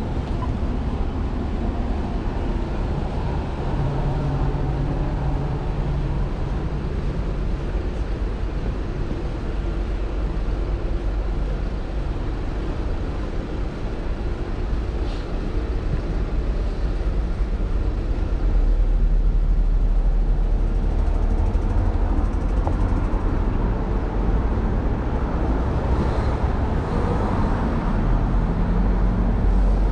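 City street traffic: vehicle engines running and passing, with a deeper engine rumble growing louder a little past the middle.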